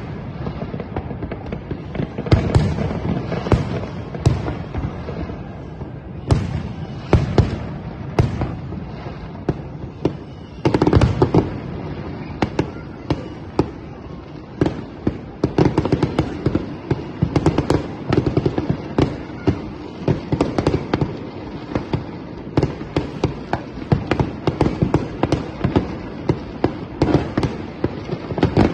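Aerial fireworks display going off: a steady run of booms and sharp bangs. There is a dense volley about eleven seconds in, and rapid crackling pops fill the second half.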